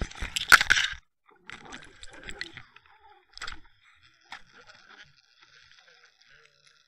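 Knocks, crunches and scraping picked up by an underwater camera rigged on the fishing line as a hooked pike shakes on the lure. The loudest cluster comes in the first second, then a few separate knocks and scrapes, and only faint crackling after about five seconds.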